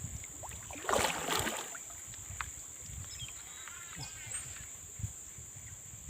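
A short burst of splashing about a second in, from a hooked kihung, a predatory fish, thrashing at the water's surface as it is landed.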